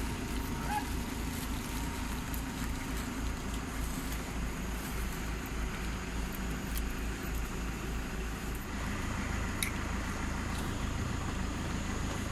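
A motor vehicle's engine running with a steady low pulsing rumble, the rumble changing about nine seconds in, over roadway traffic noise.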